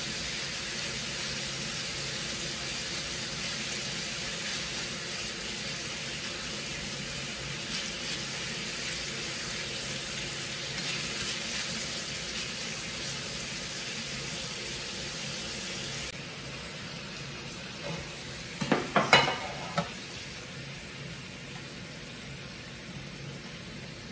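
Food frying in a pan, a steady sizzle that drops abruptly to a quieter hiss about sixteen seconds in. A short run of knocks and clatter comes about nineteen seconds in.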